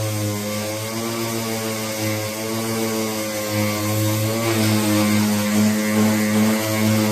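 An electric power tool's motor running steadily, a humming tone with hiss above it; its pitch wavers slightly and shifts a little about halfway through, as if under changing load.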